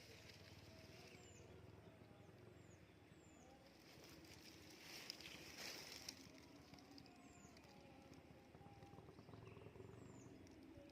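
Faint outdoor ambience with a small bird repeating a short, high, down-slurred chirp about once a second, and a brief rustling noise about halfway through.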